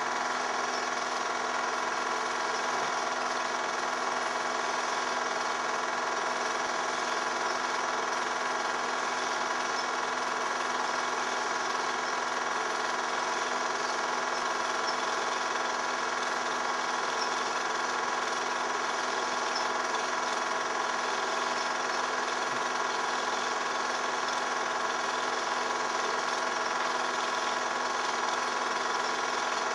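Film projector motor and mechanism running steadily, a constant mechanical whir that does not change as the pictures cut from scene to scene: the sound of the silent home movie being projected during its transfer to video.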